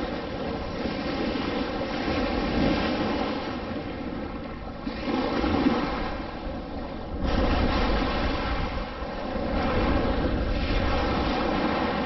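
Shallow surf washing in and out around the legs with wind buffeting the microphone, surging louder about five seconds in and again about seven seconds in.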